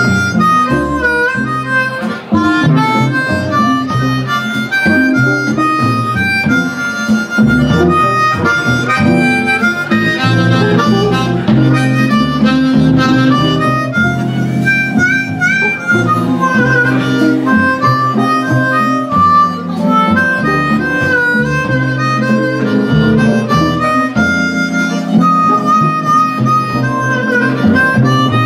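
Blues harmonica solo, cupped against a microphone and amplified, played as a run of short held and sliding notes over electric guitar accompaniment.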